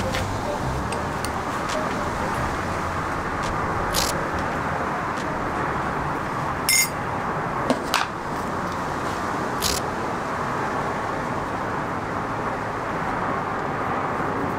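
Steady outdoor background hiss, with a few sharp clicks and a short clink of bowls and utensils being handled on the prep table.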